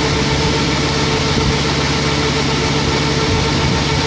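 Mobile milking parlor's washing system running its wash cycle: a steady machine hum from the pump with a hiss of detergent water and air being sucked through the milk hoses.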